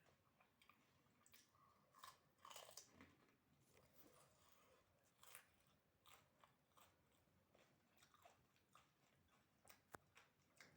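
Faint crunching and chewing of fuchka (panipuri), crisp fried puri shells cracking in the mouth, in irregular crackles that are loudest about two to three seconds in.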